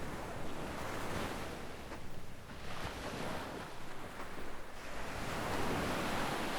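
Gentle sea waves washing up on a sandy beach, the wash swelling and fading several times and fullest near the end.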